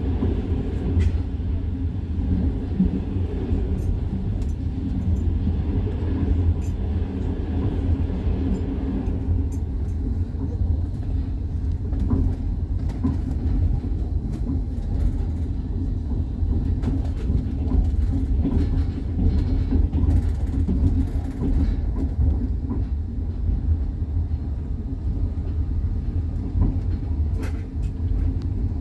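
Passenger train running on rails, heard from aboard: a steady low rumble of the wheels with scattered clicks, the clatter of the wheels over the track. A higher hiss drops away about nine seconds in.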